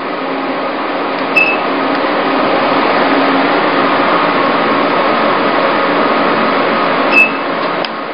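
MED-230 E-light (IPL + RF) beauty machine running with a steady whirring hum. Twice, about six seconds apart, a short click with a brief high beep sounds as the handpiece fires a light pulse.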